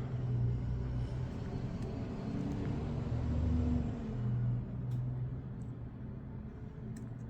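Hot-air blower running steadily, a low hum with an airy hiss, warming the phone to soften the adhesive. The hiss thins out about halfway through.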